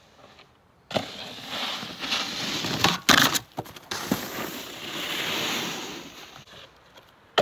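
A snowboard's base and edges scraping over hard-packed snow, starting suddenly about a second in. There is a loud sharp hit about three seconds in and another about four seconds in as the board takes off and lands, then steady scraping as it rides away, stopping near the end.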